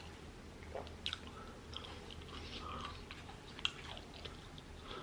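A person chewing a mouthful of bacon cheeseburger close to the microphone, with soft wet mouth clicks and smacks scattered through.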